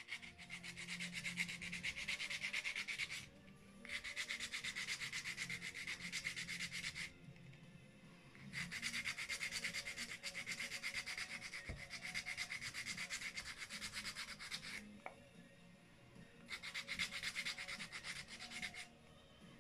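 A small wooden tree bead (Baumperle, a natural wood burl) being sanded by hand with a strip of sandpaper: rapid back-and-forth rubbing strokes in four bouts, with short pauses between them.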